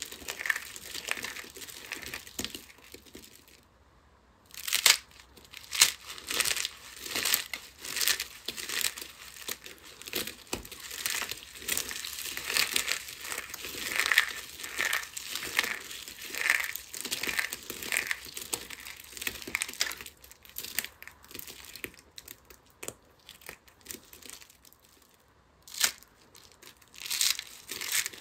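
Handfuls of thin cut soap slivers crushed and squeezed between the fingers: a crisp crackling crunch in many repeated squeezes. Two short pauses come about four seconds in and again near the end.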